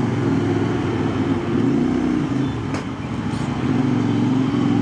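CFMoto 450SR parallel-twin engine running at low revs while the motorcycle creeps through stop-and-go traffic, with a brief dip and rise in revs about two seconds in.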